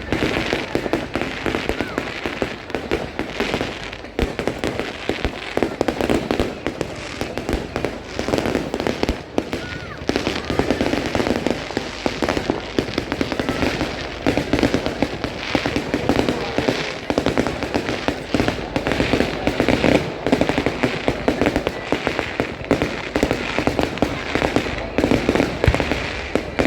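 Fireworks display going off in a dense, near-continuous barrage of bangs and crackles.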